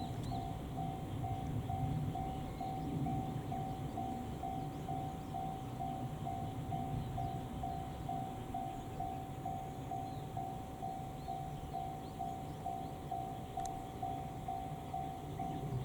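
Electronic railway level-crossing alarm sounding a steady ding about twice a second as a train approaches, over a low rumble from the approaching diesel train.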